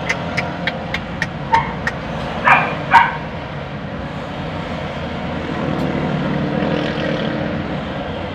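A dog barks twice in quick succession, about two and a half seconds in; these are the loudest sounds. They follow a quick run of light clicks, about three a second. A steady low hum runs underneath and swells slightly later on.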